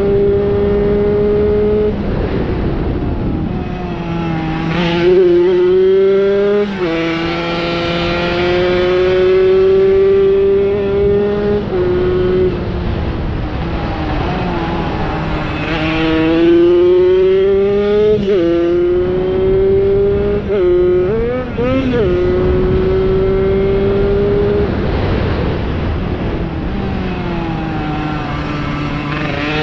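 Tomos moped's small two-stroke engine running hard at high revs, in one continuous note. Several times the pitch dips sharply and then climbs steadily again as the rider shifts or eases off and gets back on the throttle.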